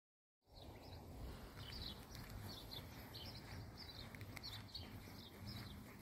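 Small birds chirping, short high calls repeating every half second or so, over a faint low background rumble.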